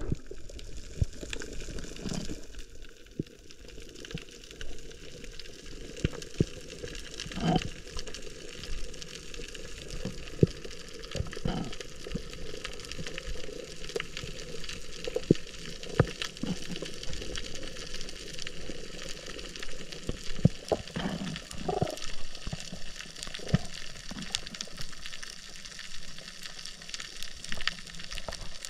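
Underwater reef ambience heard through a camera housing: a steady, dense crackle of tiny clicks, the sound of snapping shrimp on a coral reef, with a few louder swishes of water moving past the camera.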